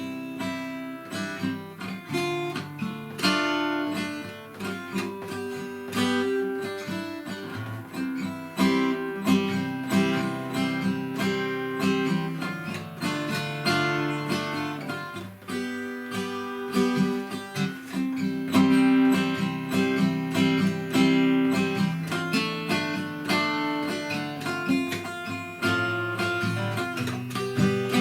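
Acoustic guitar strummed through a run of chord changes in time, played by a beginner practising to keep the chord shapes up to tempo.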